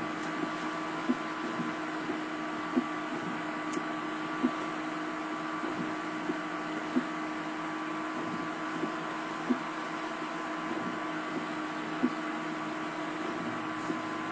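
Steady hum and hiss inside a stopped Chevy Tahoe's cabin, with a few faint steady tones running through it. A short soft tap comes every two seconds or so.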